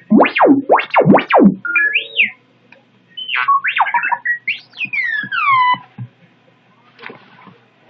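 R2-D2 toy robot beeping and whistling: a run of fast swooping up-and-down tones, then after a short pause a string of chirps and falling whistles.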